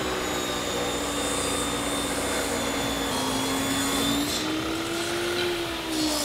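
Jobsite table saw ripping a butcher-block board: the motor runs at a steady whine that sags slightly in pitch under the cut and recovers, with the hiss of the blade in the wood. Near the end the pitch starts to fall.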